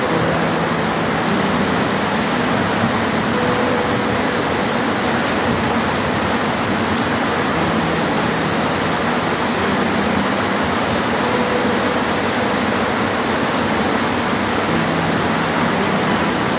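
Steady rain falling, an even, unbroken hiss. Faint brief hums come and go underneath it a few times.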